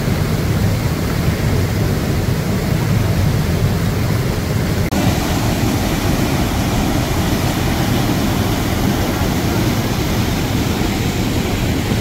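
Steady, loud rushing roar of a waterfall, heaviest in the low rumble, with a slight abrupt change in its tone about five seconds in.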